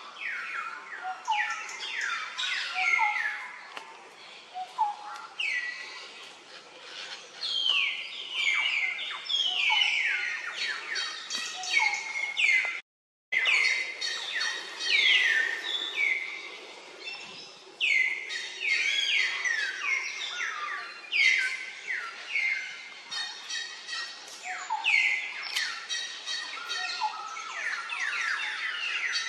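Dense, continuous chirping of many short high-pitched calls, each falling in pitch, several a second, with a brief dropout to silence about halfway through.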